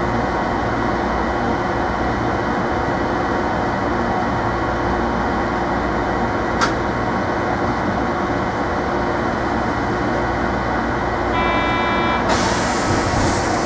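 Inside a Hiroshima Electric Railway 3700-series tram car: a steady hum and rumble of the car, with a single sharp click about halfway in. Near the end a short buzzer sounds, followed at once by a hiss of compressed air, typical of the doors closing before departure.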